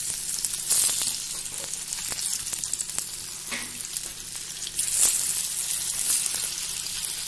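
Hot oil sizzling loudly as semolina-coated Bombay duck (bombil) fillets are laid into the frying pan to shallow-fry. The sizzle flares up about a second in and again about five seconds in.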